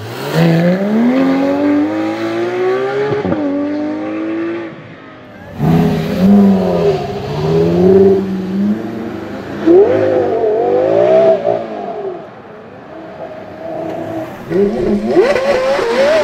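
Porsche Carrera GT's 5.7-litre naturally aspirated V10 revving hard in several short clips: a long pull climbing in pitch through the first few seconds, then a run of quick revs rising and falling, and another climb in revs near the end.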